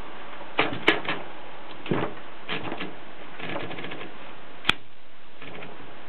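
1950s Voss typewriter's carriage and platen mechanism clicking as it is worked by hand: short clusters of clicks and light ratcheting, with one sharp snap about four and a half seconds in.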